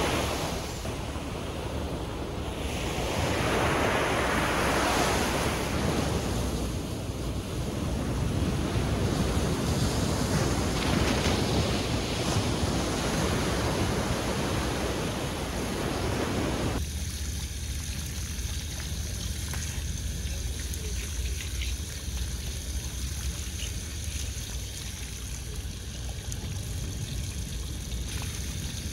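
Sea waves surging and washing ashore, with wind buffeting the microphone; the wash swells louder a few times. About halfway through, the sound cuts abruptly to a thinner, steadier hiss.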